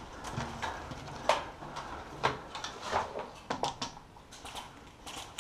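Irregular light clicks and knocks in a small room, a dozen or so scattered through, the sharpest about a second in, near the middle and just after.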